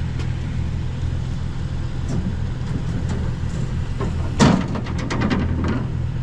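Metal wire shelving rattling and clattering as it is set onto a loaded pickup bed. There is a sharp burst of rapid rattles about four seconds in that lasts over a second, over a vehicle engine idling steadily.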